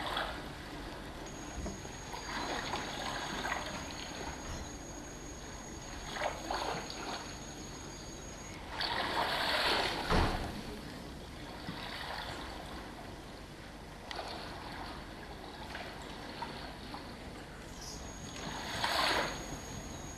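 Sea water lapping and splashing in a steady wash, with two louder surges of water, one about halfway through and one near the end.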